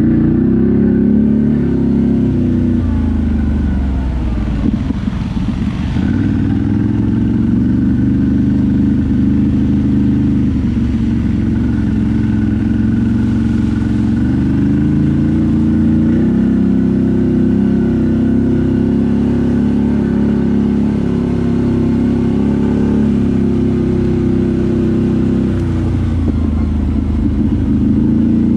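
ATV engine running under changing throttle, its pitch dipping and rising again a few times as the rider eases off and accelerates.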